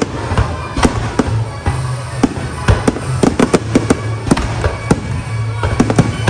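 Fireworks display: aerial shells and comets bursting in a quick, irregular string of sharp bangs and crackles, with music playing underneath.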